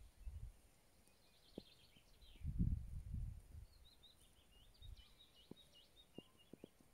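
Faint birdsong in quick twittering phrases, twice. Over it come low bumps, loudest about two and a half seconds in, and a few light clicks from pastels being worked on a drawing board.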